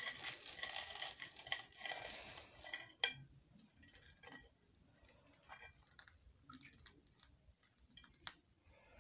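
A knife sawing through the crisp breadcrumb crust of a fried bread sandwich on a ceramic plate, a dense crunching for about three seconds that ends in one sharp clink against the plate. Then faint scattered crackles as the crisp crust is handled and pulled apart.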